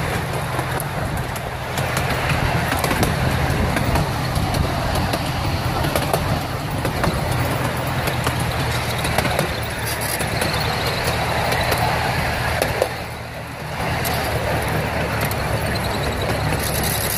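Miniature ride-on train rolling along its track: a steady rumble of the cars' wheels on the rails, with many small clicks and clatters, easing off for a moment about 13 seconds in.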